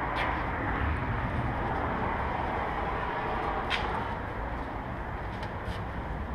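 Steady hum of city traffic from the streets below, with wind rumbling on the microphone and a couple of light clicks.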